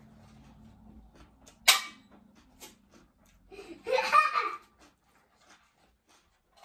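Small clicks and rustles of eating and handling a paper napkin at a table, with one sharp loud snap about a second and a half in. Around four seconds in comes a short loud burst of a child's laughter, and a low steady hum stops just after it.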